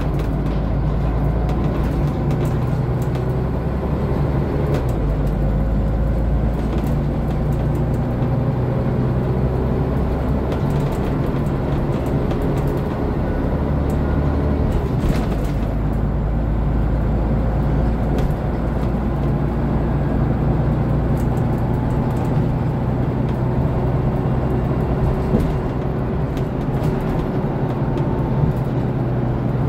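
Scania OmniDekka double-decker bus under way, heard from inside on the upper deck: its diesel engine and ZF automatic gearbox run hard, with a low engine note that shifts a few times. Occasional brief clicks and rattles come from the bodywork.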